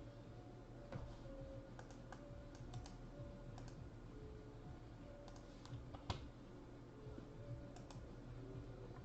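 Faint typing on a computer keyboard: scattered key clicks in small clusters, the sharpest one about six seconds in.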